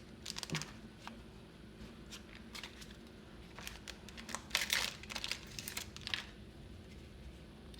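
Foil trading-card booster pack wrapper crinkling as it is handled and torn open, in short crackly bursts just after the start and again in a denser run from about four and a half to six seconds in.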